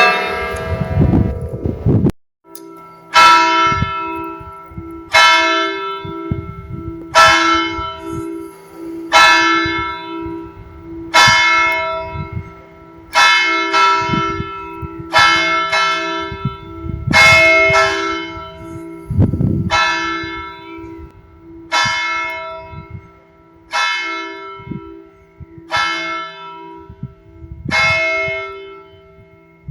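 Church bell tolling, one stroke about every two seconds, each ringing out and fading over a steady low hum. A louder, denser peal of bells cuts off about two seconds in, and the tolling starts about a second later.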